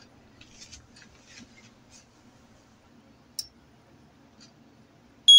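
Faint scattered rustles and a single click over low hum, then right at the end a digital multimeter's continuity beeper cuts in with a loud, steady high-pitched tone. The beep means the Taco zone valve's end switch has closed across terminals 2 and 3 now that the power head has heated up.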